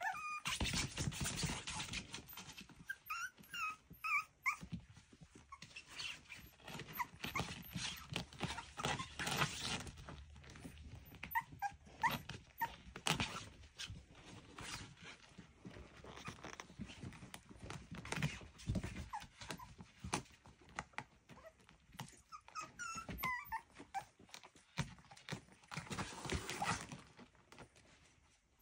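Miniature schnauzer puppies giving short high cries now and then over constant scuffling, scratching and light knocking as they clamber about on a blanket.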